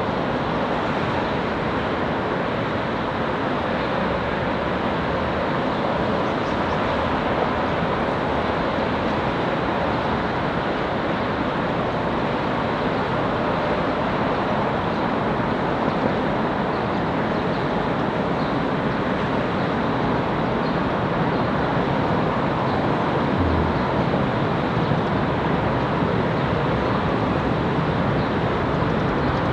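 Seoul Subway Line 4 electric train running at a steady speed, with continuous, unbroken running and rail noise that holds its level throughout.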